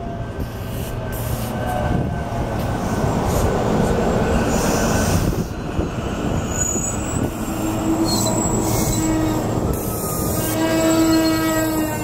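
Rotem Silverliner V electric multiple-unit train rolling into the station past the platform, its running noise on the rails building as the cars go by. In the last few seconds, several whining tones rise over the rumble as the train slows.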